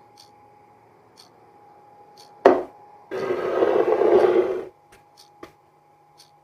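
A sharp crack, then the plastic screw lid of a Marmite jar grinding as it is twisted for about a second and a half. Soft ticking about once a second runs underneath.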